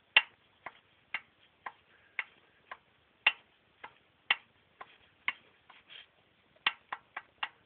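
Sharp metallic clicks of a piston knocking in the first cylinder of a Toyota Probox engine as it is worked by hand, about two a second and coming faster near the end. The knock comes from a piston loose in its bore: the cylinders are badly scuffed after the engine overheated.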